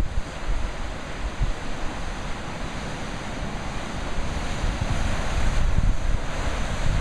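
Pacific surf breaking and churning over a rocky shoreline: a steady rush of white water that swells louder about five seconds in. Wind buffets the microphone with low rumbles at the start and again near the end.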